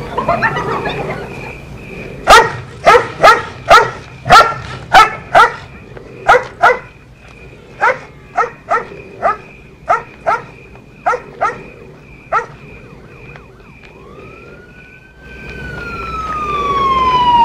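A dog barking repeatedly, about eighteen sharp barks over ten seconds. Then a siren starts winding up near the end, its long wail slowly falling in pitch.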